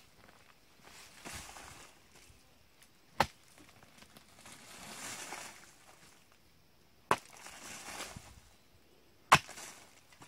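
A hoe blade striking into hard-packed soil three times, sharp thuds a few seconds apart, with softer scraping and rustling of loose earth between the strikes.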